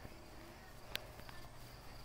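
Faint outdoor ambience: a steady high insect trill, with one sharp click about a second in.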